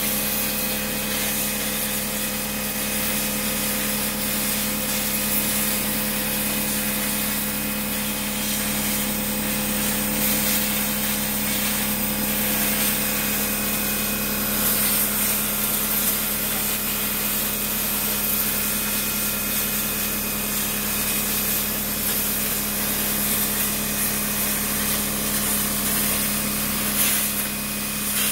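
CNC plasma cutter torch cutting through sheet metal: a steady hiss of the plasma arc, unbroken and even, over a steady low hum.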